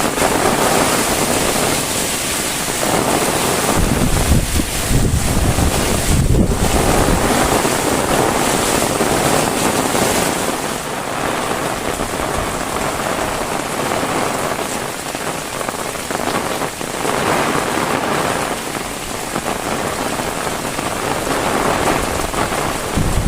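Heavy rain falling in a steady hiss, with a low rumble swelling for a few seconds about four seconds in.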